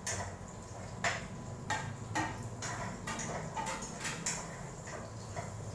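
A cooking utensil clinking and scraping against a wok as food is stirred: a string of irregular knocks, about two a second, over a steady low hum.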